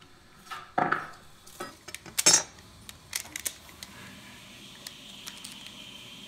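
Stainless steel heat-treating foil pocket being handled, giving a few sharp metallic crinkles and clinks in the first three seconds or so. A faint steady high tone follows from about four seconds in.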